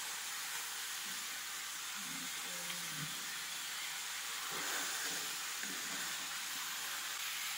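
Cabbage, carrots and ground meat sizzling steadily in a frying pan as they are stirred with a wooden spatula.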